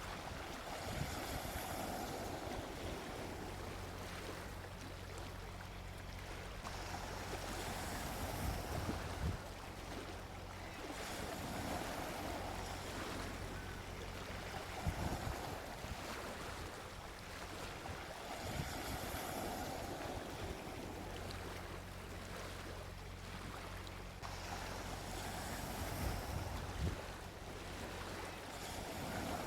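Gentle sea waves washing onto a beach, the surf swelling and fading every few seconds, over a low steady rumble.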